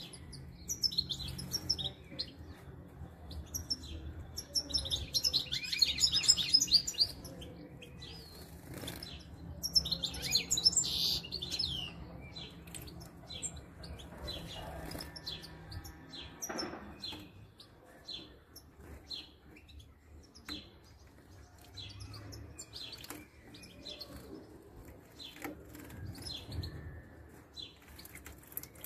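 High-pitched chirping at a European goldfinch nest with newly hatched chicks, while the female feeds them. The chirping comes in two loud, dense bursts of rapid chirps about five and ten seconds in, with scattered single chirps the rest of the time over a faint low hum.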